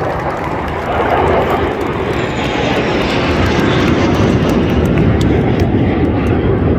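Military jet aircraft flying a display pass overhead: a loud, steady jet noise with a faint falling whine about two seconds in.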